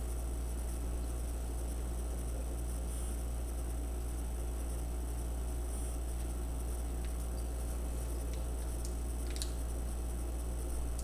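Steady low electrical hum with a constant hiss, and a few faint clicks about seven to nine seconds in.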